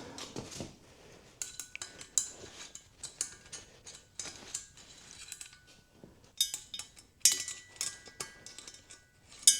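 Scattered light metal clinks and taps with brief ringing, from valve keys (collets) and tools being worked on a Norton Atlas cylinder head as a valve is freed and taken out. The sharpest clinks fall about six and a half, seven and a quarter, and nine and a half seconds in.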